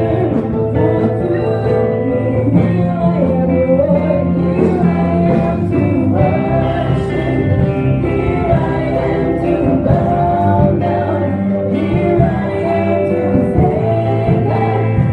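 Church worship team singing a gospel song live, a woman's lead voice with backing singers over keyboard-led band accompaniment.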